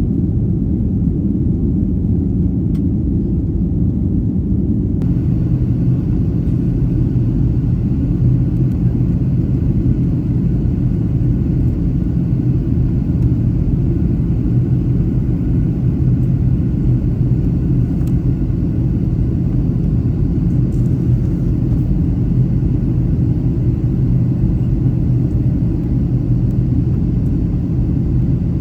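Steady low rumble of a moving vehicle, with an even engine hum under it.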